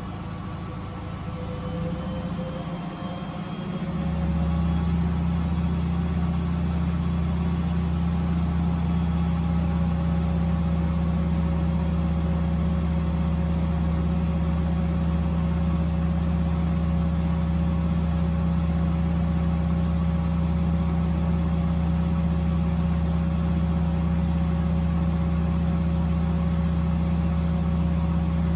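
Miele W Classic WDA211WPM washing machine's drum speeding up into a spin with a rising whine, then holding a steady high-speed spin with a low, even hum for the rest of the time.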